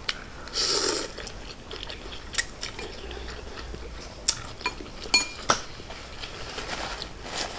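A loud slurp of pho noodles about half a second in, then several sharp clicks of a fork against a glass bowl, one with a short ring, amid quiet eating sounds.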